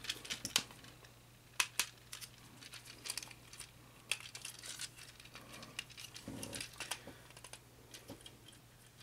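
Small plastic parts of a Transformers Studio Series Leadfoot action figure clicking and rattling as it is handled and folded during transformation, in scattered faint clicks and short rustles.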